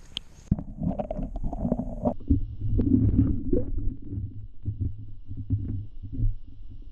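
Muffled underwater sloshing, rumbling and irregular knocks, heard through an action camera's waterproof housing submerged in a creek while hands lower a largemouth bass into the water. The high end drops away suddenly about half a second in as the camera goes under.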